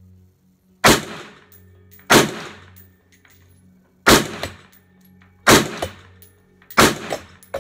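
Colt Canada SA20 (civilian C7A2) 5.56 mm semi-automatic rifle firing five shots at an uneven pace, about one every one to two seconds, each crack followed by a short echo.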